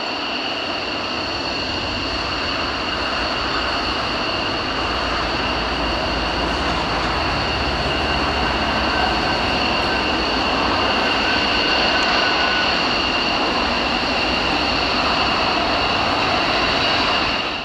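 Fighter jet engines of a taxiing F-35 Lightning II and an F-15 Eagle: a steady high whine with two piercing tones over a rushing hiss, swelling slightly midway.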